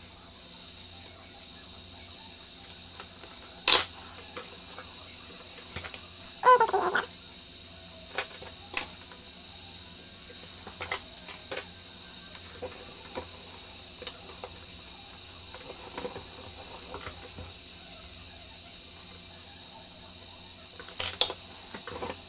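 Small sharp clicks and taps of tweezers and a soldering iron against a connector and a metal bench vise while wires are soldered to the connector pins, over a steady high hiss. A cluster of taps comes about six to seven seconds in, and a last pair comes near the end.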